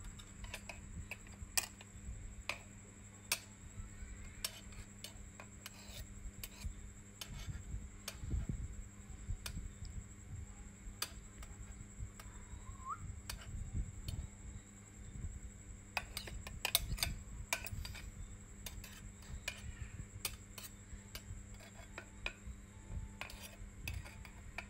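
Irregular sharp clicks and clinks of kitchenware being handled, coming in small clusters, over a steady faint hum.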